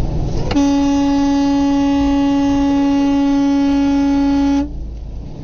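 Truck horn held in one long, steady blast of about four seconds, starting about half a second in and cutting off sharply, over road noise: a warning at a box truck drifting into the lane.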